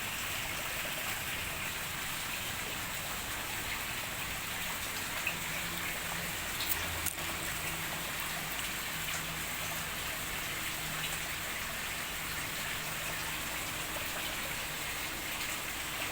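Steady hiss of falling water pattering on surfaces, with a few faint clicks about seven seconds in.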